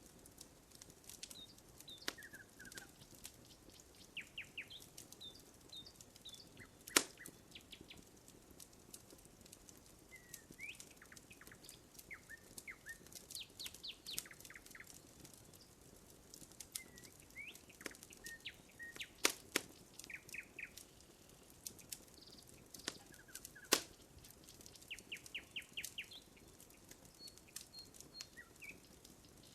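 Wood fire crackling faintly with scattered sharp pops, three of them louder, about 7, 19 and 24 seconds in. Small birds chirp and give short quick trills in the background throughout.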